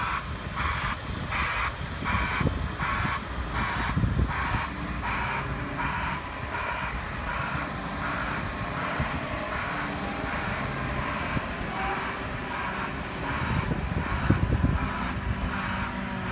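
Wheel loader's reversing alarm sounding in even pulses, just under two a second, strong for the first few seconds and then fading but carrying on faintly, over the steady low rumble of a diesel engine running.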